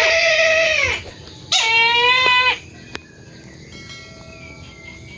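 Brahminy kite giving two loud, drawn-out calls: the first about a second long and dropping in pitch at the end, the second a little longer with a quavering tremble. A single sharp click follows about three seconds in.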